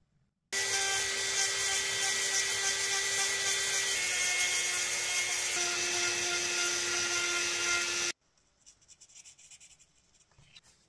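Small handheld power tool running and working PVC: a steady high whine over a hissing grind, dipping slightly in pitch about halfway through, starting and stopping abruptly. Faint light handling noises follow near the end.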